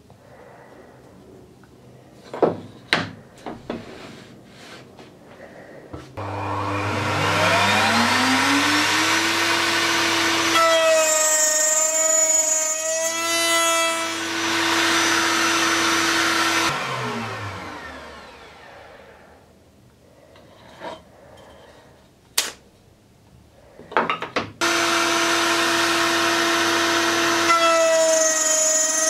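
A table-mounted router starts, winds up to speed and runs steadily. It changes tone as the bit cuts a profile along the edge of a small wooden workpiece, then winds down after being switched off. A few knocks of wood being handled come first, and the router runs and cuts again near the end.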